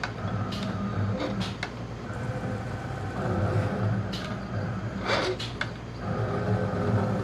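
Eclipse 3240 computerized mat cutter running a cut: its motors hum and whine steadily as the cutting head travels, with scattered clicks and a louder rushing stretch about five seconds in.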